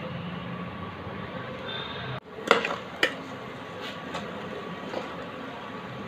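Onions and chillies sizzling steadily in oil in a frying pan. After a brief break, a steel spoon stirring the pan clinks and scrapes against it several times.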